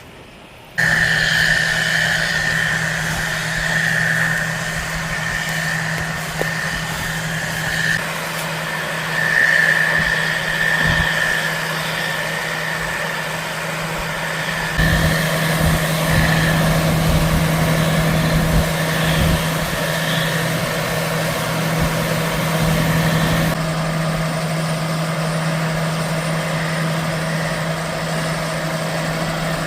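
Heavy farm machine's engine running steadily with a high whine over it; the sound changes abruptly a few times.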